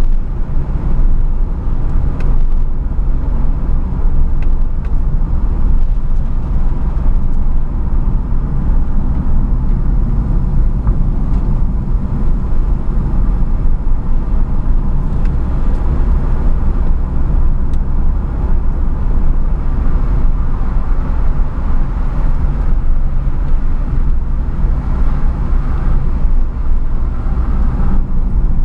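Steady drone of a car on the move, heard from inside the cabin: engine hum and tyre rumble on the road surface.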